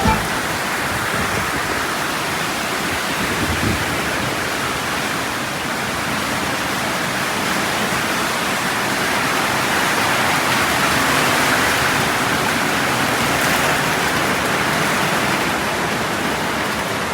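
Heavy rain pouring down in a steady hiss, swelling a little about ten seconds in.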